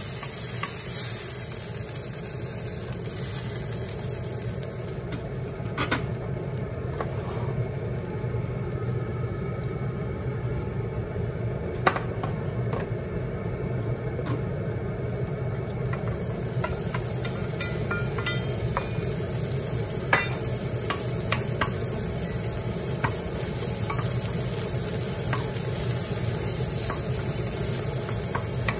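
Pork stir-frying in a nonstick pan: a steady sizzle, with a wooden spatula scraping and knocking against the pan in scattered sharp clicks. Chopped white leek goes in about halfway through, and the clicks of the spatula come more often after that.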